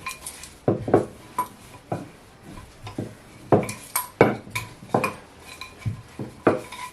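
A rolling pin working pastry dough on a board: a string of about a dozen irregular knocks and light clinks as the pin is rolled and set against the surface.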